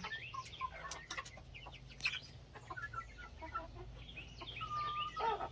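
Chickens clucking softly in a scatter of short calls, with one longer, level call near the end.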